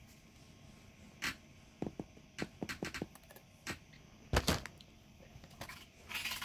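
A dog crunching a hot-and-spicy pork rind: a string of irregular short cracks, the loudest about four and a half seconds in. A foil snack bag crinkles briefly near the end.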